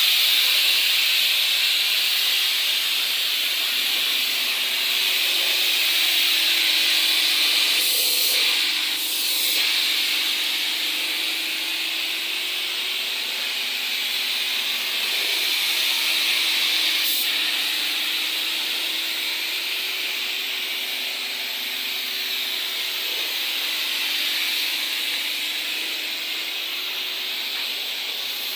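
Gravity-cup spray gun hissing steadily as it sprays clear coat onto a car body, with a faint low hum underneath and a couple of brief clicks partway through.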